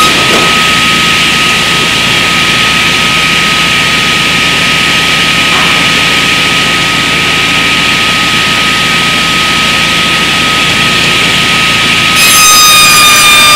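SC101 table saw's circular blade cutting through a timber fence post, a steady high whine under a hiss of sawing that lasts about twelve seconds. Near the end the cut finishes and the blade spins free, its whine ringing clean and slightly louder.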